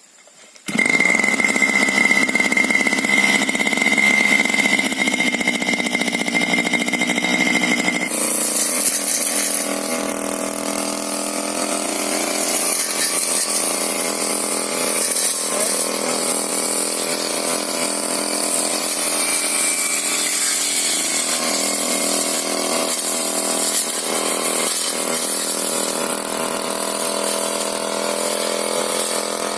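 Petrol brush cutter engine running steadily at speed. It comes in abruptly under a second in, and about eight seconds in the sound changes, with a strong high hiss added over the engine note.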